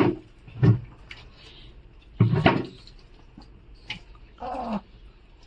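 Pug puppy whining in four short cries, the last one falling in pitch.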